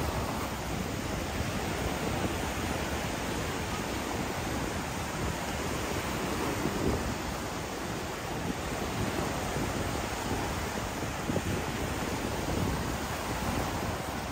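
Ocean surf washing onto the beach, mixed with wind buffeting the microphone: a steady, low rushing noise with no distinct events.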